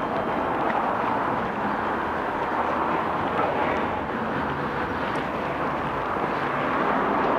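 Steady rushing vehicle and wind noise with no distinct rhythm.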